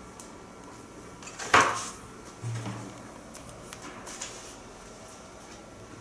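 Handling noises as a sneaker is picked up and turned over: one sharp knock about one and a half seconds in, then a few faint clicks and taps.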